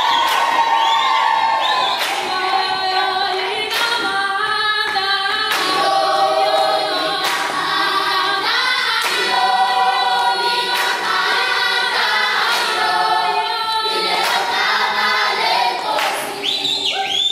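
Children's choir singing together, with a sharp beat about every two seconds.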